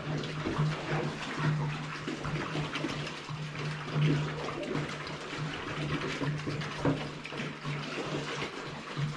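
Water splashing and running in a bucket, with many small splashes and knocks, over a steady low hum that cuts in and out.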